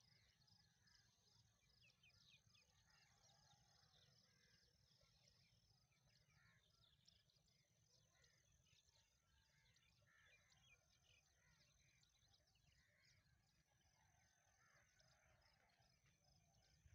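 Very faint rural ambience: many small birds chirping with a steady, pulsing high insect trill.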